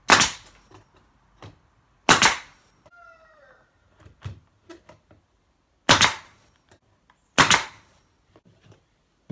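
Finishing nailer firing nails into the corners of a wooden frame: four sharp shots, two about two seconds apart, then after a pause two more about a second and a half apart, with light clicks of handling in between.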